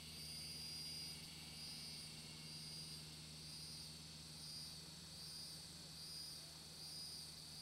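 Insect chorus of crickets or katydids, a high, thin trill that swells and fades a little faster than once a second, over a faint steady low hum.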